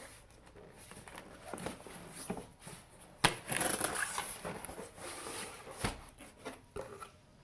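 Cardboard packaging being handled as a flat-pack lamp box is opened: small knocks and clicks, then a sharp knock about three seconds in, followed by about a second of rustling, scraping cardboard.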